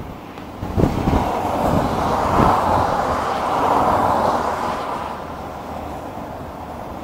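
Motorway traffic: a car passing at speed, its tyre noise swelling about a second in and fading away after about five seconds.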